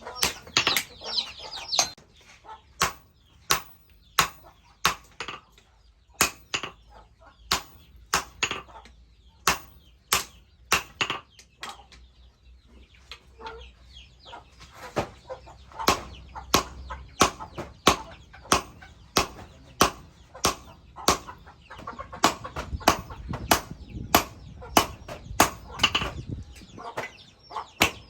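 Hand hammer striking steel on an anvil, forging leaf-spring steel into a chisel: a steady run of sharp blows, about one to one and a half a second, quickening to about two a second in the second half. Chickens cluck in the background near the start.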